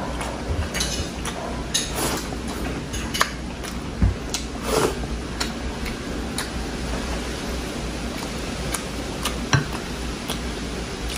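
Close-up eating sounds from a person chewing rice and beef eaten by hand: scattered short wet clicks and smacks over a steady low background hum.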